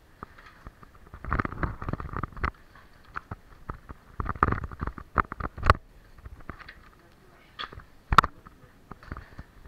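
Scuffing and shuffling of a caver moving over a dirt cave floor, with clothing and gear rubbing, in two longer bursts and then sharp knocks, the loudest near the end.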